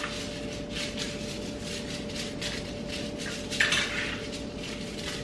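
Aluminium foil on a baking sheet crinkling and rustling under a hand rubbing oil across it, in a series of short irregular swishes with one louder crinkle about three and a half seconds in.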